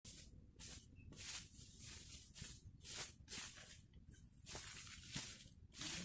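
Footsteps on dry fallen leaves: a faint, regular rustle about two or three times a second.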